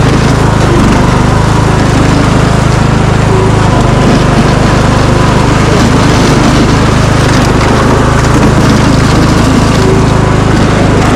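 Small engine of a riding lawnmower rigged as a snow plow, running steadily at a constant, loud pitch.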